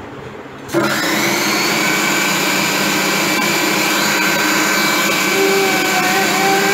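Electric food processor mixing cookie dough. The motor starts up sharply less than a second in with a brief rising whine, then runs steadily at full speed.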